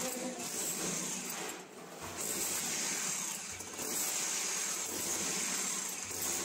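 Electric power drill boring into a brick wall, running steadily with a brief dip about two seconds in.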